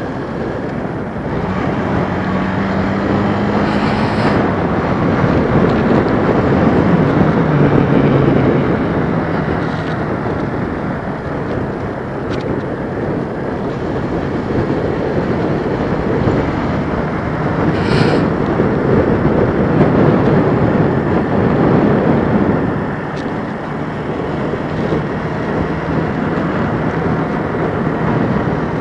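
Kawasaki KLX125's small single-cylinder four-stroke engine running under a loud rush of riding wind on the microphone, while the motorcycle descends. The engine note drops about seven seconds in, and there are two short ticks, one a few seconds in and one past the middle.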